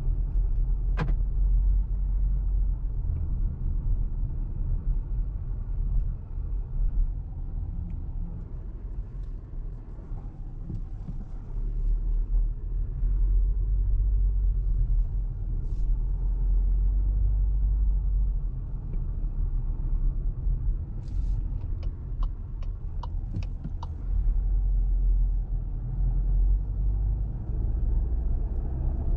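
Cabin sound of a 2024 Volkswagen Tiguan 1.5 eTSI mild-hybrid driving at low speed: a steady low rumble of the car in motion that dips quieter twice. There is one sharp click about a second in and a short run of light clicks about two-thirds of the way through.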